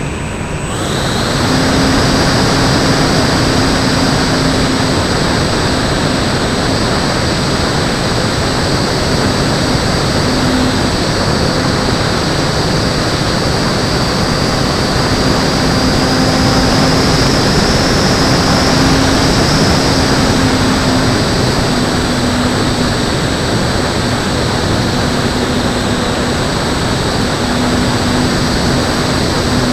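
E-flite Timber RC plane's electric motor and propeller running in flight, recorded from a camera mounted under the fuselage. The motor whine rises as the throttle comes up about a second in, then holds steady.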